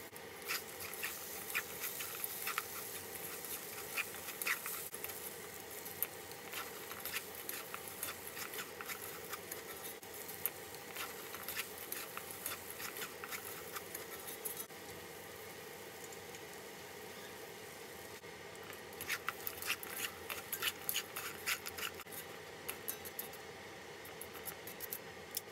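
Wooden spatula stirring and scraping dried anchovies and pecans in a frying pan, a busy stream of small clicks and rustles over a steady background hiss. The stirring stops for about four seconds a little past halfway, then starts again near the end.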